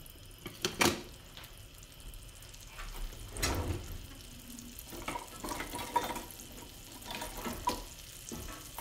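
Butter sizzling faintly as it melts in a hot cast-iron wok, with sharp knocks and irregular kitchen clatter: a knock about a second in, another near the middle, and a run of clattering in the second half.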